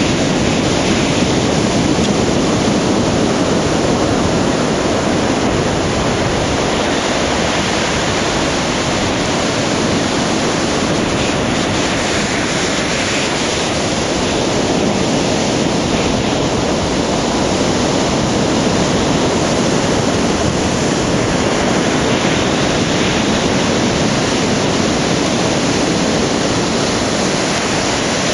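Atlantic Ocean surf breaking and churning: a continuous loud rush of white water that swells gently in level.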